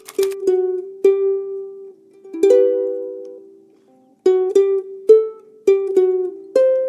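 Background music: a slow melody of single plucked-string notes, ukulele-like, each note ringing and fading, with short pauses about two and four seconds in.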